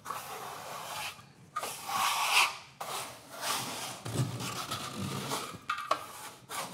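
Steel plastering trowel scraping across dried plasterboard jointing compound in a series of short strokes, knocking the ridges and lumps off the base coat over the joint tape to prepare it for the top coat.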